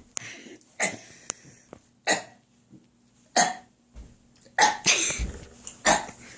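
A person making short, sudden throat sounds, about five in a row with pauses between them, as they try to burp on cue. A few soft low thumps fall in the second half.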